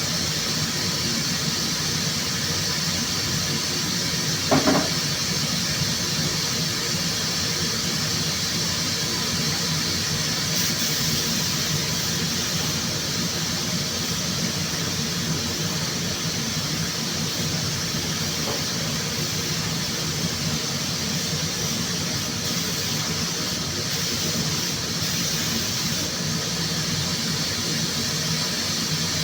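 Steady, high hiss of rushing air, with one brief louder knock about four and a half seconds in.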